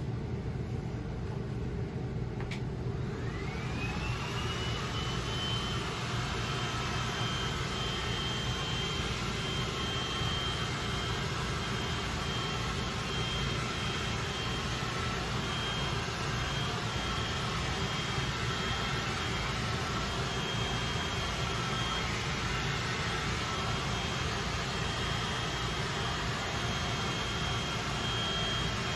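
Electric heat gun switched on with a click, its fan motor spinning up in a rising whine that settles into a steady high whine over a rush of blown air. It is heating the glue of a vinyl tailgate wrap to loosen it for peeling.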